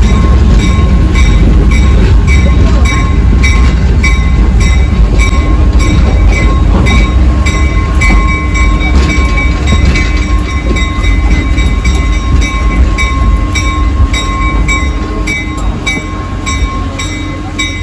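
Railcar wheels rolling on track: a steady low rumble with rhythmic clicking, getting quieter near the end.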